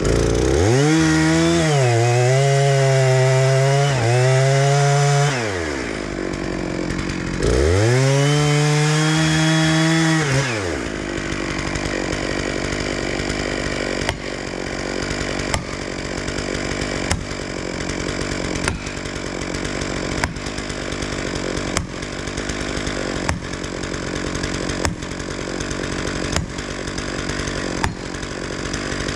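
Gas chainsaw run up to full throttle twice, about five seconds and then three seconds, its pitch rising at the start of each run and falling back at the end, likely cutting spruce wood. It then keeps running at a lower, steady level, with a faint tick about every second and a half.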